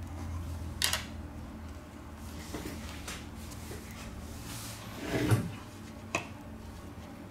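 Handling noise from an opened iPod touch 4th generation as its logic board is lifted and the screen assembly pulled free: a few small clicks and knocks of metal and plastic parts, the loudest a dull knock about five seconds in.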